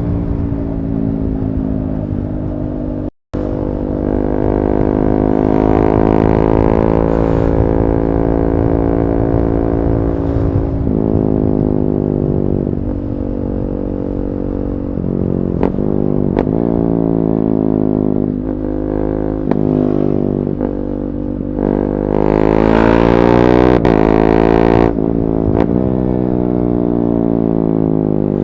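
KTM 390 Duke's single-cylinder engine running through an Akrapovic slip-on exhaust with the catalytic converter removed. The pitch rises and falls repeatedly, with several quick dips and recoveries as it runs up and down the revs, and the sound cuts out briefly about three seconds in.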